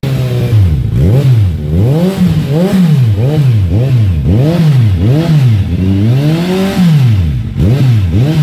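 Kawasaki Ninja 1000 SX inline-four engine revving through Arrow Race Pro slip-on exhausts with the dB killers fitted. The stationary bike's throttle is blipped over and over, and the engine note climbs and drops about one and a half times a second.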